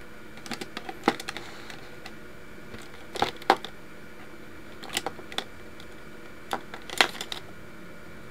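Light, sharp clicks and taps in four short clusters, a few clicks to each, over a steady faint hum.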